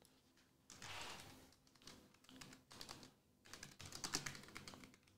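Faint typing on a computer keyboard: scattered key clicks, more of them in the second half.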